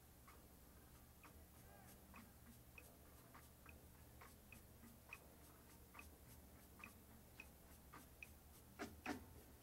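Faint, sharp percussion clicks at uneven spacing, a little over one a second, from a marching band during a near-silent pause in its show. Two louder hits come near the end.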